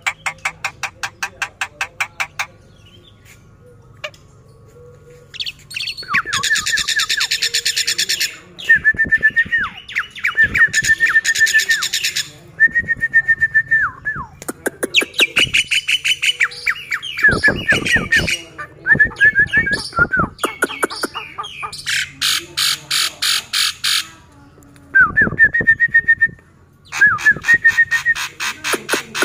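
Black-winged myna (jalak putih) singing loudly while held in the hand: phrase after phrase of fast, harsh rattling chatter alternating with short whistled notes that drop in pitch at their ends, a varied song with brief pauses between phrases.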